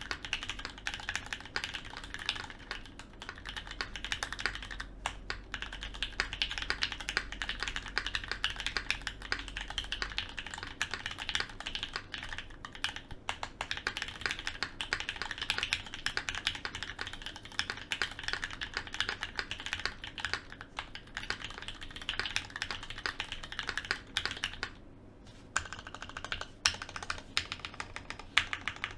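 Fast, continuous typing on a custom mechanical keyboard with lubed Gateron Milky Black linear switches on a full aluminium plate, a steady stream of key clacks with a short pause near the end.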